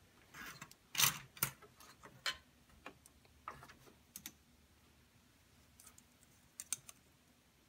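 Scattered light clicks and taps of desktop DDR3 RAM sticks being unlatched, pulled from the motherboard's memory slots and handled, the loudest about a second in.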